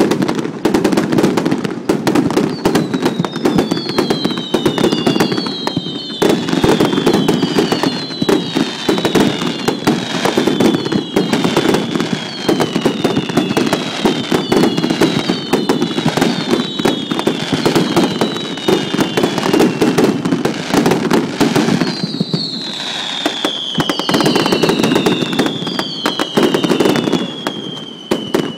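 Fireworks going off in a loud, dense, continuous crackle of bursts. From a few seconds in, many whistles fall in pitch, each overlapping the next. The crackle thins briefly about three quarters through, more falling whistles follow, and the sound cuts off at the end.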